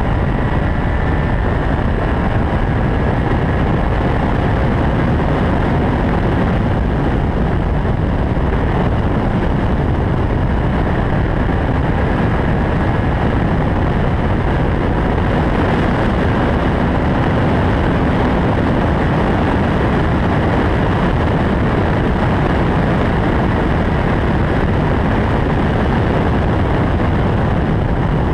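Caterham R500 lightweight sports car running at speed: its engine under a loud, steady rush of wind and road noise.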